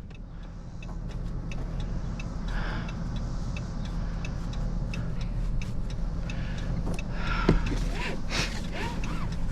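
Engine and road noise from inside a truck's cab as it drives off, slowly getting louder, with a faint regular tick about twice a second.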